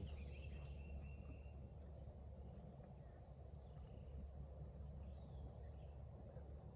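Faint outdoor ambience: a steady, high-pitched insect drone over a low rumble, with a short high whistle near the start.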